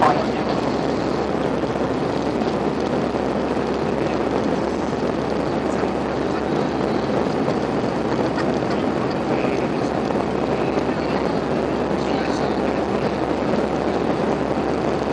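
Airbus A320 jet engine and airflow noise heard inside the passenger cabin: a steady, even rush with no changes in level.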